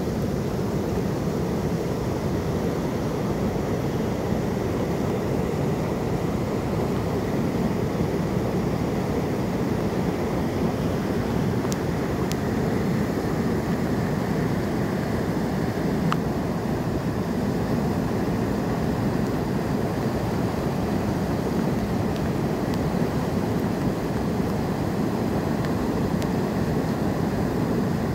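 Swollen river at high water pouring over a weir: a steady, deep rush of water.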